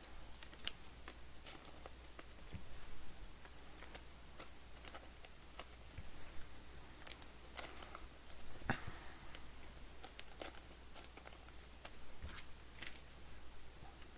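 Light, irregular clicks and rustles of trading cards and their wrappers being handled, stacked and sorted on a tabletop, over a steady low hum.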